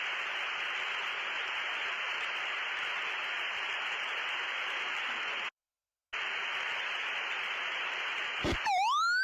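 Steady hiss of a T-45C Goshawk's cockpit radio and intercom channel, cutting out completely for about half a second midway. Near the end, a cockpit warning tone starts, sweeping down and up in a repeating warble, as the engine emergency begins.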